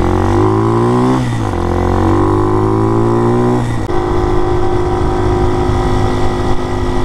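A Hawk 250 DLX dual-sport motorcycle's fuel-injected 250cc single-cylinder engine, fitted with a foam pod air filter, accelerating through the gears. The engine note rises, drops at two upshifts about a second and nearly four seconds in, then holds a steady pitch at cruising speed.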